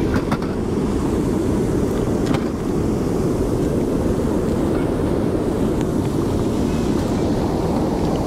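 Wind buffeting the microphone, a steady low rumble, with a few light clicks near the start and about two seconds in.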